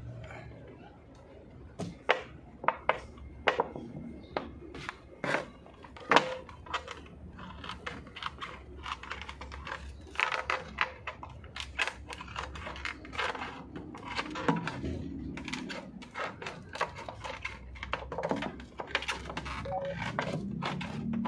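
Scissors cutting into a large thin plastic water bottle: a run of irregular sharp clicks and crackles as the plastic is snipped and flexed.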